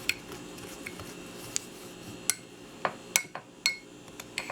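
A spoon clinking against the side of a small container while honey and ground cinnamon are stirred together into a thick paste: about eight sharp, uneven clinks, each with a short ring.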